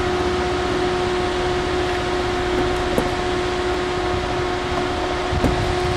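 Steady mechanical drone: a constant pitched hum over a noisy rush, with a couple of faint ticks.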